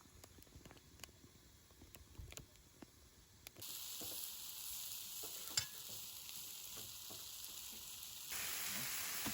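Food sizzling in a pan, a faint hiss with scattered crackles that steps up louder about three and a half seconds in and again near the end.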